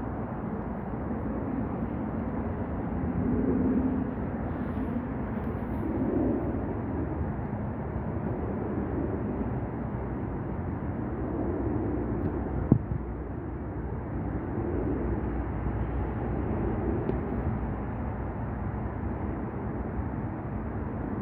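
Steady outdoor background rumble of city traffic, swelling and easing every few seconds, with a single sharp click about two-thirds of the way through.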